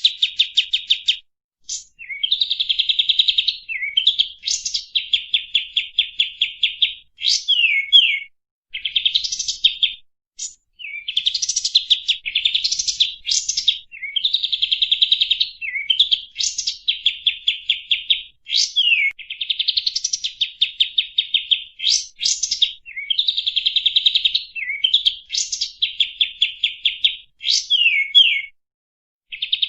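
Kapas tembak songbird singing its song over and over, as used for a lure call (pancingan). Each phrase is a second or two of fast, rapidly repeated high notes ending in quick downward slurs, with short gaps between phrases.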